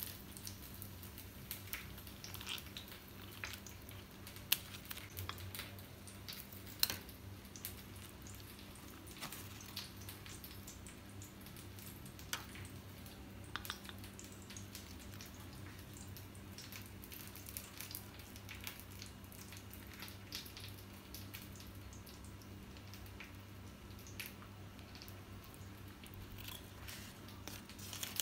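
Kitchen scissors snipping through a cooked banana-leaf parcel and its banana-fibre ties on a steel plate, with soft crinkling of the oily leaves as they are peeled back. The snips and crinkles come as scattered sharp clicks, over a faint steady low hum.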